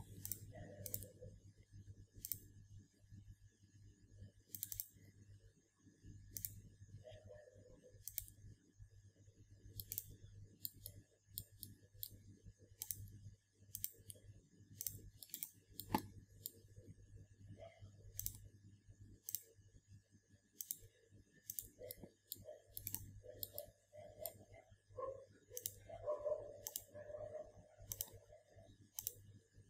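Computer mouse clicking, quiet and irregular at about one or two clicks a second, as sketch lines are selected and trimmed one by one, over a steady low electrical hum.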